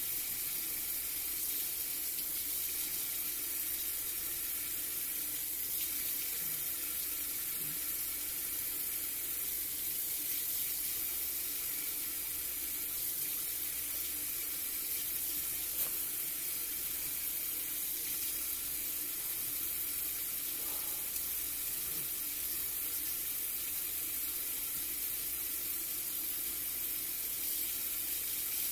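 Kitchen faucet running steadily into a stainless steel sink, the water splashing over raw chicken gizzards being rinsed and trimmed under the stream.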